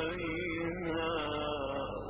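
A man chanting the Quran in the melodic tajweed style, holding one long wavering note through a phrase.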